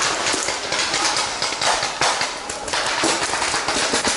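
Paintball markers firing in rapid, irregular pops, over the rustle of the camera-wearer moving through forest undergrowth.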